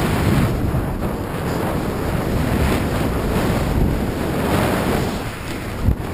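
Rushing wind buffeting the camera microphone and a snowboard hissing through deep powder snow while riding fast downhill, with a brief thump near the end.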